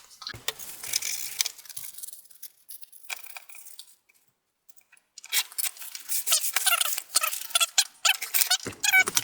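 Scraping and scratching at caked dust on a computer fan, a dense run of scratchy strokes with some squeaks. There is a pause of about a second around four seconds in.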